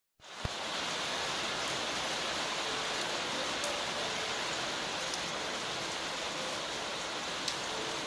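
Steady rain falling outdoors, an even constant hiss, with a sharp click about half a second in and a fainter tick near the end.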